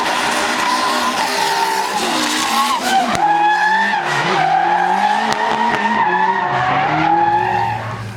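Drift car engine revving hard, its pitch rising and falling with the throttle while the tyres skid and squeal. The sound drops in loudness near the end.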